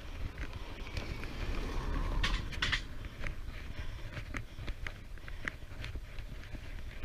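Wind rumbling on the microphone of a camera riding on a moving bicycle, with scattered light clicks and rattles throughout and a brief louder rush of noise about two to three seconds in.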